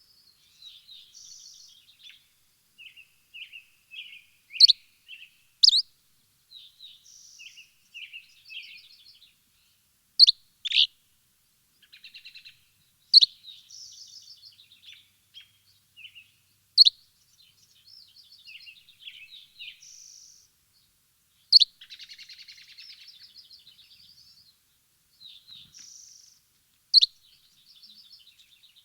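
Small birds chirping and twittering: sharp, loud down-slurred chirps every few seconds over softer, fluttering trills and warbles.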